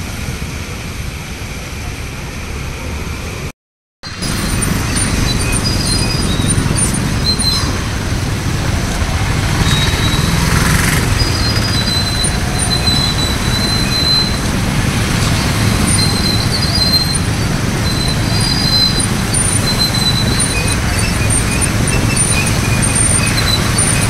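Road traffic driving through floodwater: engines rumbling under a steady hiss of tyres and wash through standing water. The sound cuts out briefly about four seconds in and comes back louder, with faint high chirps now and then.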